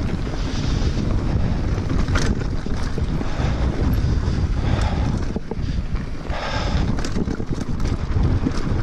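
Wind buffeting the action camera's microphone while a mountain bike descends a dirt singletrack, with the tyres rolling over dirt and a few sharp clicks from the bike.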